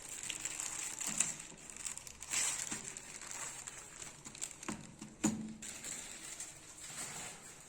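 Keyboard packaging being handled: paper and plastic wrapping crinkling and rustling, with a few sharp clicks and knocks, the loudest about a second in and about five seconds in.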